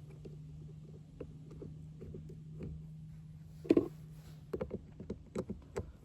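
Scattered light clicks and taps from handling small parts, with one louder knock a little before four seconds in, over a steady low hum that stops about four and a half seconds in.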